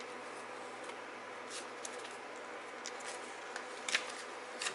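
Faint rustles and light clicks of cardboard packaging being handled, a few scattered ones with a slightly louder rustle near the end, over a steady low room hum.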